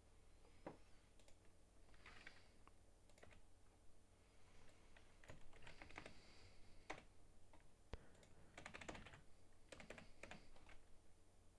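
Faint computer keyboard typing: short runs of keystrokes with pauses between them, as code is edited.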